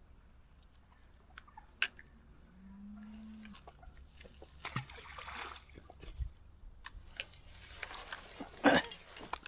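Small clicks and rustles of fishing tackle being handled as a bait of luncheon meat goes on the hook, with a louder brushing rush of noise near the end.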